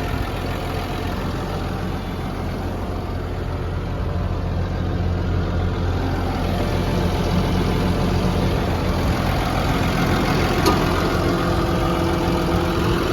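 Caterpillar D6N bulldozer's Cat diesel engine running steadily at a low idle, growing a little louder a few seconds in. There is one faint click near the end.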